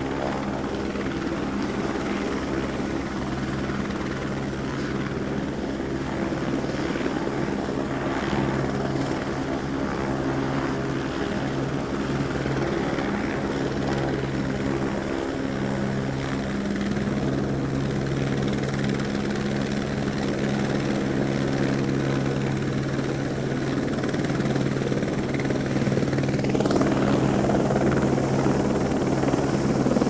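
Helicopter approaching: a steady drone with a fast, even rotor beat, growing louder over the last few seconds.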